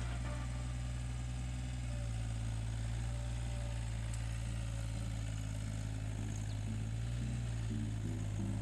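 Komatsu PC35 mini excavator's diesel engine running steadily, a constant low hum.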